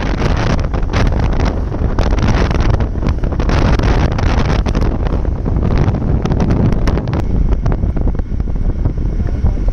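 Wind buffeting the microphone over the steady low rumble of a moving vehicle.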